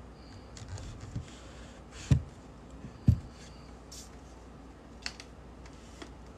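Handling noise close to the microphone: faint clicks and two soft knocks, about two and three seconds in, as small objects are picked up or set down.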